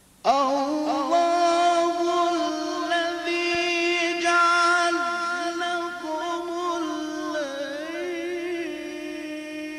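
Egyptian Quran reciter's voice in melodic mujawwad recitation, starting suddenly a moment in and holding one long, drawn-out note, with wavering ornamental turns around the middle and again toward the end.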